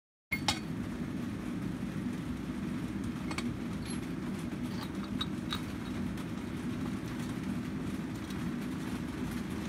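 Steady low rumble of workshop machinery, with a few light metal clinks as a steel horseshoe and insert are handled and set down on a steel jig plate.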